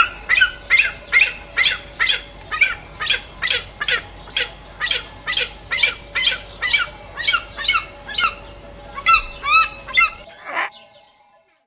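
A bird calling over and over in short squawking honks, about two calls a second for some ten seconds, with a few calls of a different pitch near the end.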